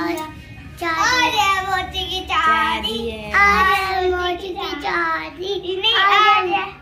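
Young children singing in high voices, a string of drawn-out notes.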